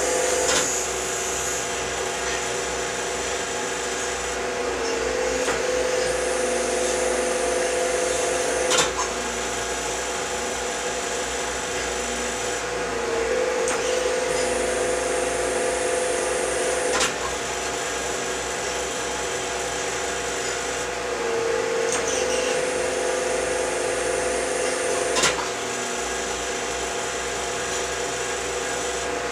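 Hydraulic press power pack, an electric motor driving the pump, running with a steady whine. Its tone shifts in a repeating cycle about every eight seconds as the deep-drawing press works, with a sharp knock four times, once in each cycle.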